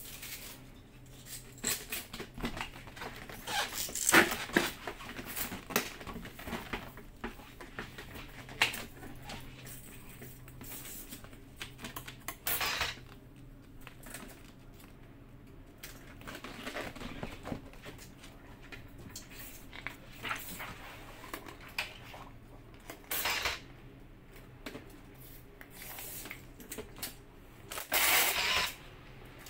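Hand-handling noises of a motorcycle racing helmet being serviced: scattered clicks, taps and knocks as the padding and shell parts are fitted, with a few short rustling or scraping bursts, the longest near the end.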